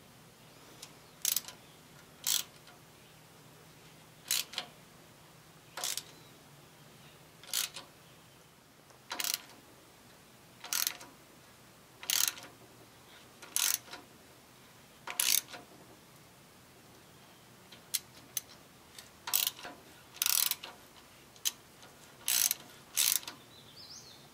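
Ratchet wrench turning a thread tap into a drilled hole in cast metal, its pawl giving short, sharp clicks about every second and a half as the handle is swung back between cutting strokes.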